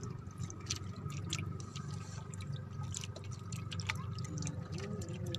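Water dripping and splashing lightly in the bottom of a small fishing boat's hull, a string of irregular small drips and ticks over a steady low hum.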